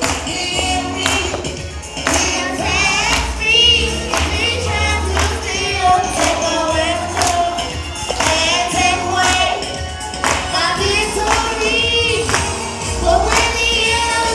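Youth choir singing a gospel praise song with band backing: several voices over a bass line and a steady beat of sharp percussion hits, such as tambourine or drums.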